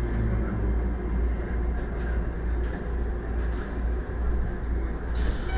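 Keikyu electric train running along the line, heard from the cab: a steady rumble of wheels on rail with a deep low drone.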